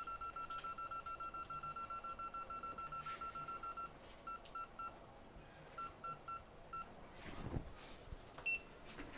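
Electronic beeping from a hot-air rework station: a rapid run of identical beeps, about six a second, for roughly four seconds, then two short groups of three and four beeps. Near the end there is a brief whoosh and one single higher beep.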